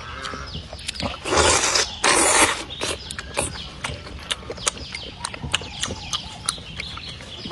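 Close-up eating sounds of a person eating chicken soup: many quick wet chewing and smacking clicks, with two loud slurps about a second and a half and two seconds in.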